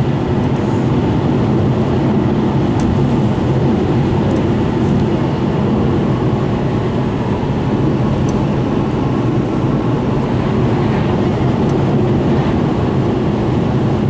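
Steady engine drone and tyre noise of a car cruising at highway speed, heard from inside the cabin.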